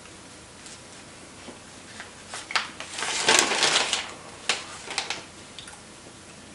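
Paper packaging being handled: a few sharp clicks about two seconds in, then about a second of loud crinkling rustle, then scattered clicks that die away.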